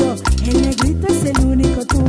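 Cumbia band music without vocals: a keyboard melody with gliding notes over bass and a steady beat.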